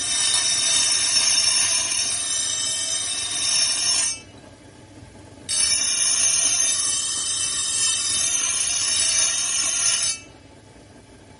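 Power grinder grinding steel with a shrill ringing rasp, in two long passes with a break of about a second and a half between them.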